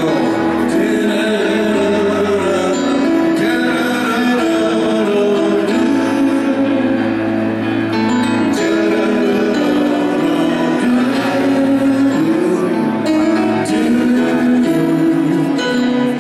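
Live band playing a slow ballad, with sustained notes and chords throughout.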